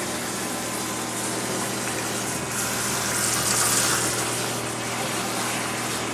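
Steady rush of running floodwater after a thunderstorm downpour, with a faint low hum beneath it.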